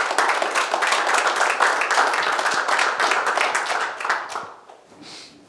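Applause from a small audience, dense hand-clapping that thins out and dies away about four and a half seconds in.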